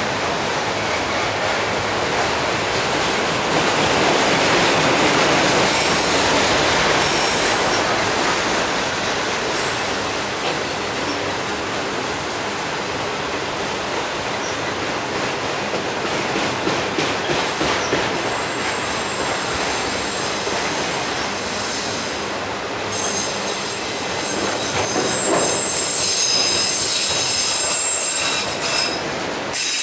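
Autorack cars of a freight train rolling past: a steady, loud noise of steel wheels on the rails. A high-pitched wheel squeal joins in during the second half.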